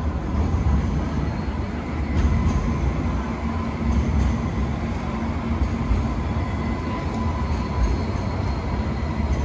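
Light rail tram running close by: a steady low rumble with faint high-pitched whines held over it.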